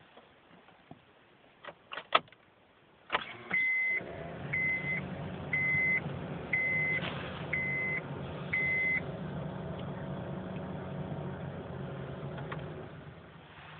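A car engine starts about three seconds in, after a few clicks, and then idles steadily. A warning chime beeps six times, about once a second, over the start of the idle.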